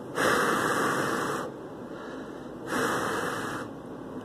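Two long puffs of breath blown out close to the microphone, the first about a second and a half long, the second about a second.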